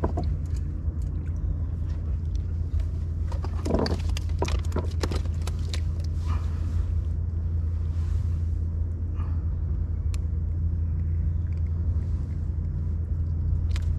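A steady low rumble, with a few short knocks and clicks, most of them around four to five seconds in.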